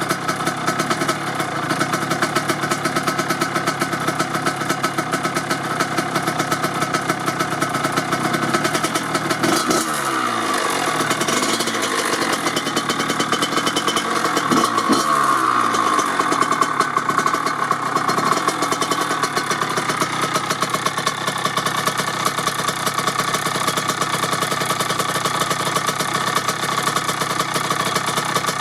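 1997 Kawasaki KX80's single-cylinder two-stroke engine, fitted with a DEP S2 silencer, idling steadily on its warm-up. It is blipped about ten seconds in and again around fifteen seconds in, the revs climbing and dropping back to idle.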